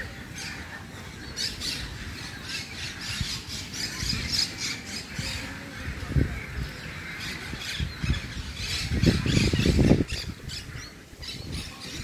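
A flock of birds squawking and chattering, with short calls overlapping throughout. A loud low rumble comes about nine seconds in, lasting about a second.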